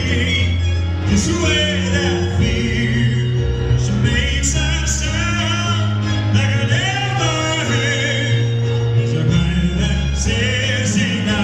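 Live pop song played by a band with a string section, a male voice singing the melody in phrases over sustained string and bass notes.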